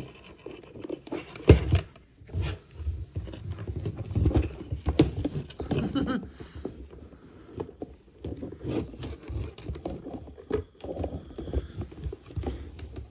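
Hands handling a clear plastic cereal container and PTFE tubing while filament is fed through: irregular taps, knocks and scrapes, with one sharp knock about one and a half seconds in.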